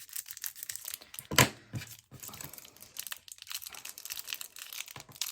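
Packaging crinkling and rustling as it is handled and opened, in irregular crackles with one louder sharp crackle about a second and a half in.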